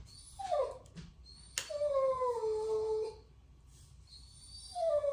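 A dog whining in drawn-out cries that fall in pitch, three times, the second and third each about a second and a half long. A single sharp click comes just before the second cry.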